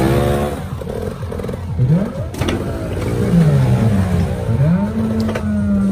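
Dirt bike engine revving up and down several times under throttle as the rider works across a wooden plank obstacle, the revs held high for about a second near the end, with a couple of short knocks.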